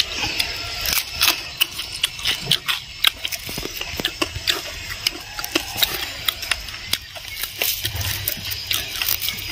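Clatter of tableware and eating: many irregular, sharp clicks and taps.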